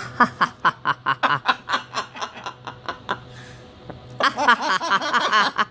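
Pet talking bird mimicking laughter: a rapid run of short "ha" notes for about three seconds, then a burst of warbling chatter near the end.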